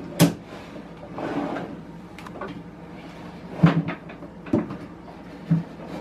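Bottom freezer drawer of a Samsung French-door refrigerator being handled on its pulled-out slide rails. A sharp clack just after the start, then a cluster of knocks and clacks about halfway through and one more near the end.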